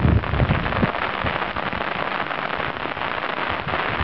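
Heavy rain falling steadily, a dense patter of drops on roofs and the ground, with a brief low rumble in the first second.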